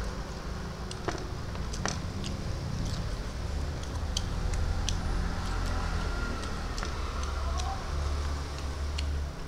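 Chewing on small fried shrimp: scattered short crunches and mouth clicks, irregular and about once or twice a second, over a steady low rumble.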